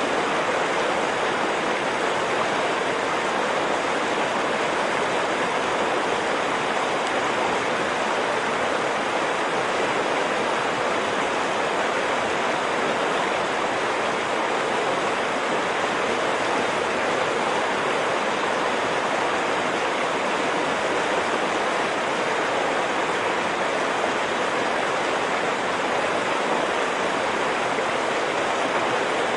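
Stream water running in a steady, even rush, with no rise and fall.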